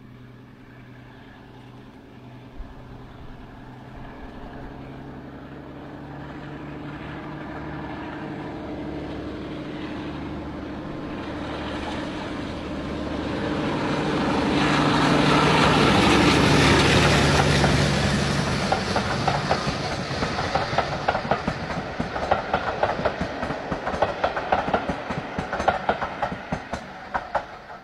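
British Rail Class 52 'Western' diesel-hydraulic locomotive approaching and passing with a train of coaches. Its engine drone grows steadily louder to a peak a little past halfway. The coaches' wheels then clickety-clack rhythmically over the rail joints as they go by, and the sound fades near the end.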